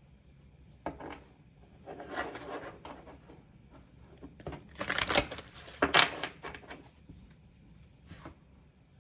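Tarot cards being shuffled and handled, a papery rustling and slapping in several short spells, loudest about five to six seconds in.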